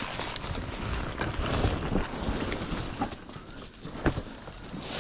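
Irregular knocks, scrapes and rustling of a person carefully clambering down into a hole, with handling rumble on the microphone.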